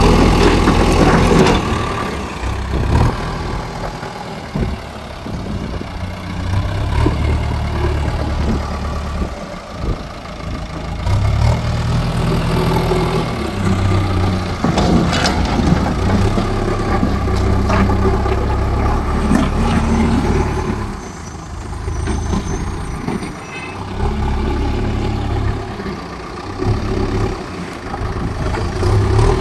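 JCB loader's diesel engine working under varying load while levelling ground, swelling and easing every few seconds, with occasional knocks.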